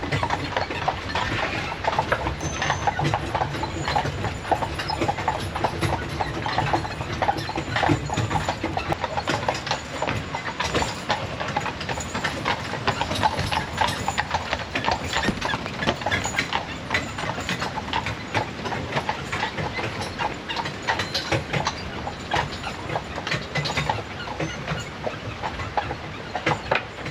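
Horse hooves clip-clopping in a steady rhythm as a horse-drawn carriage rolls along, over a continuous low rumble of its wheels.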